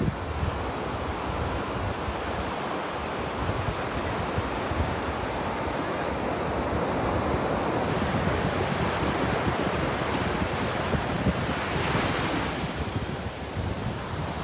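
Ocean surf washing steadily onto a beach, with a low rumble underneath; about twelve seconds in a wave breaks with a brighter hiss.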